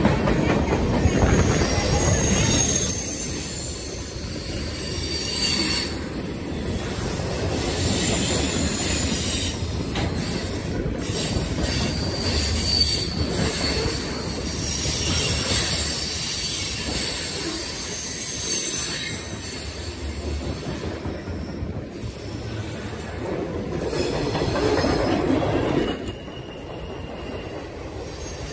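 Freight cars of a CSX train rolling past close by, steel wheels rumbling steadily on the rails, with faint high-pitched wheel squeal coming and going.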